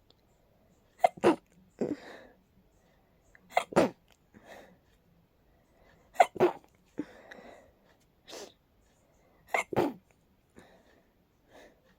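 A person sneezing in a rapid fit: sharp sneezes, mostly in quick pairs, every two to three seconds, with breathy inhales between. The sneezing is set off by allergies.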